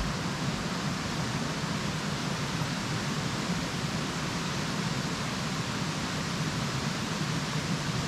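Steady rush of water from a small woodland waterfall and creek cascade.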